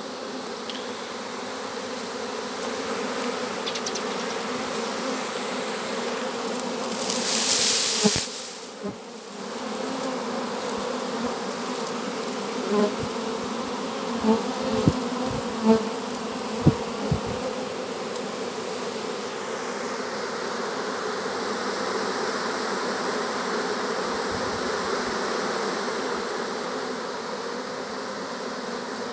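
A honeybee swarm buzzing around and over an open wooden hive box: a dense, steady drone. A brief rushing noise comes about a quarter of the way in, and a few light knocks fall in the middle.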